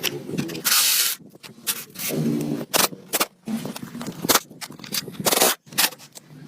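Irregular scraping strokes and sharp clicks, as of hand tools working over corroded metal engine parts.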